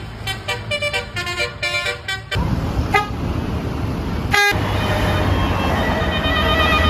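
Basuri telolet bus horn playing a quick melody of short stepped notes. After about two seconds the sound changes to a bus engine's rumble with a brief horn note, and then a held chord of horn tones over the engine.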